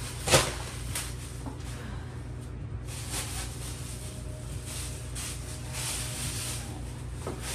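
Groceries being handled: a sharp knock about a third of a second in, then soft rustling of packaging as items are moved, over a steady low hum.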